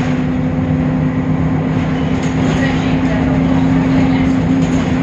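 Temsa Avenue LF city bus's DAF diesel engine running at a steady, unchanging pitch, with a deeper sound than is usual for this bus model.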